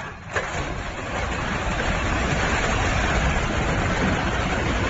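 A multi-storey concrete building collapsing: a long rumble of falling concrete and rubble that builds over the first couple of seconds and holds. A single sharp knock comes just before it.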